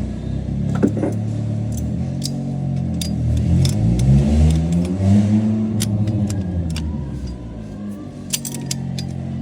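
A car engine running, its pitch rising and falling back once around the middle as it revs, with scattered light metallic clinks over it.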